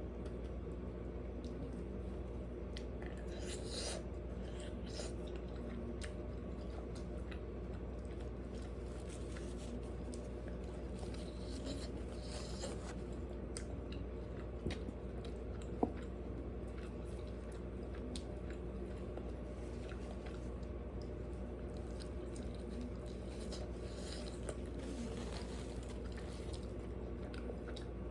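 Close-miked chewing and biting of food, with crunches, wet mouth sounds and scattered small clicks over a steady low hum; one sharper click about sixteen seconds in.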